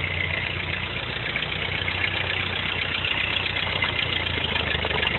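Vintage Ford N-series tractor's four-cylinder engine running at a steady idle.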